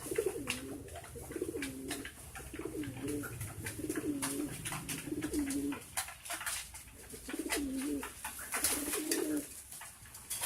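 Domestic pigeons cooing in a run of low, wavering phrases, pausing briefly past the middle and then cooing again, with scattered sharp clicks throughout.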